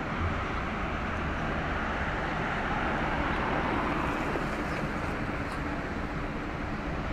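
Steady low rumble of distant engines with an even hiss of wind and water over it, and a faint hum running through.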